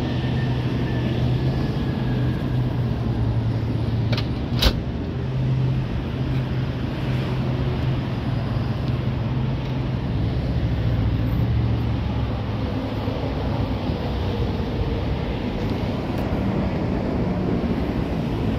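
A car engine idling steadily, with a single sharp clunk about four and a half seconds in.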